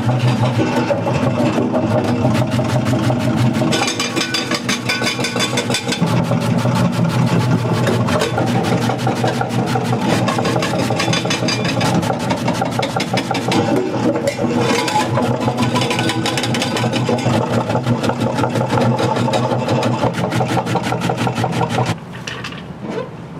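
A motor-driven machine running steadily with a fast, even rattle, stopping about 22 seconds in.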